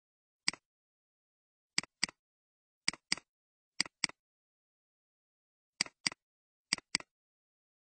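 Computer mouse clicks: a single click, then five quick double-clicks opening folders one after another, with silence between them.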